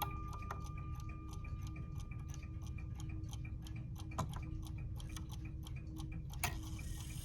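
Seth Thomas Exeter mantel clock's Hermle movement ticking quickly and evenly, with a couple of slightly louder clicks partway through.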